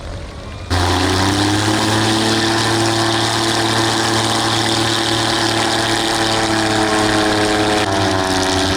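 Loud aircraft engine running steadily, a droning pitched hum over a broad roar, cutting in abruptly about a second in, with a slight shift in pitch near the end.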